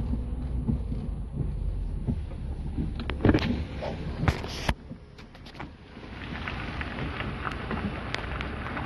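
Pickup truck engine idling, heard from inside the cab, then a few sharp clunks of the cab door about three to four and a half seconds in; after that, steady rain pattering.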